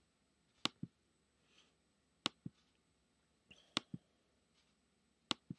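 Computer pointer-button clicks: four press-and-release pairs, the two clicks of each pair a fifth of a second apart, coming about every second and a half as list items are selected.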